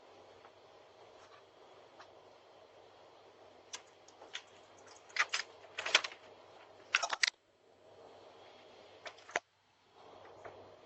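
Irregular clusters of sharp clicks and clatters, loudest from about four to seven seconds in and again briefly near the nine-second mark, over a faint steady hum. The sound cuts out to near silence twice for a moment.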